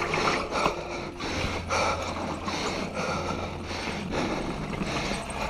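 Norco Range A1 mountain bike rolling over a dirt trail, its tyres, chain and parts rattling and ticking, with the rider's heavy rhythmic breathing.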